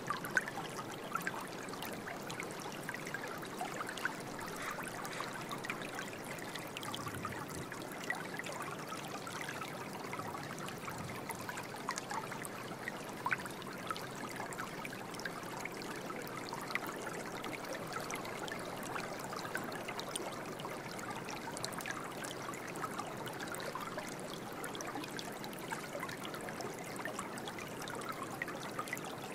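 Running water trickling and babbling steadily, like a small stream, with many tiny splashes and no music.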